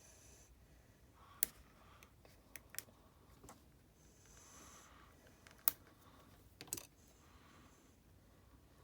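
Small, sharp tool clicks and taps on an opened iPhone 12 Pro Max, about seven of them at irregular intervals, two louder than the rest, as the battery flex connector is pried off its socket.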